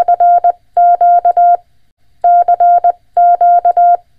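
Morse code (CW) sent as a single steady tone of about 700 Hz, keyed on and off in dots and dashes. There are four groups, separated by short pauses.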